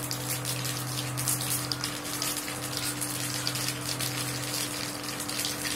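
Mustard seeds crackling and sizzling in hot oil in a kadai, with many small irregular pops: the oil is hot enough for the tempering. A steady low hum runs underneath.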